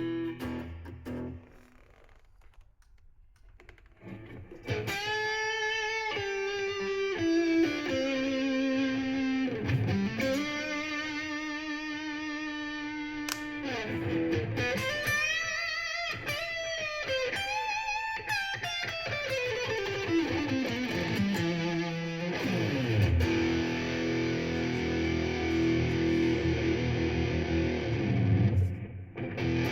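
Parker PDF70 electric guitar played through distortion. After a brief note and a short pause near the start, it plays long sustained lead notes with wide string bends and vibrato, then lower, denser riffing from about two-thirds of the way in.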